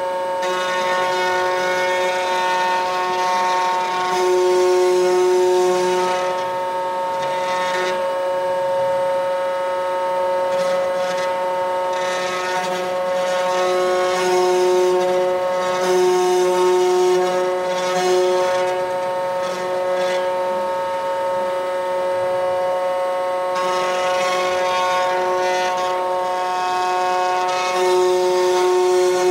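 Desktop CNC wood router running, its spindle giving a steady high whine, with a hissy cutting noise that comes and goes every few seconds as the machine moves through the work.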